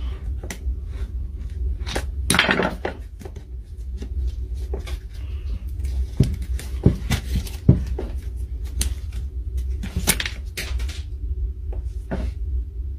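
Scattered clicks, taps and scrapes of small plastic and metal parts and hand tools being handled while dismantling an impact wrench to reach its motor brushes, over a steady low hum.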